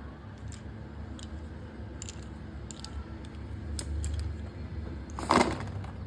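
Slate pencils and their packaging being handled: scattered light clicks and taps, then one louder, short crunch about five seconds in.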